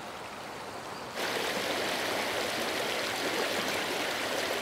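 River current rushing over a riffle, an even rush of flowing water that gets suddenly louder a little over a second in, then holds steady.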